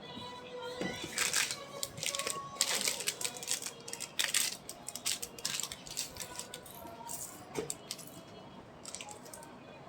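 Loose Lego Technic plastic pieces rattling and clicking as they are handled, a busy run of clicks that thins out after about five seconds.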